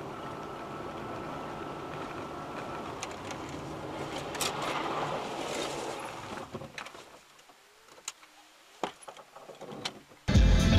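Steady road and engine noise heard from inside a moving car on a wet road, fading away about seven seconds in as the car slows to a stop, followed by a few sharp clicks.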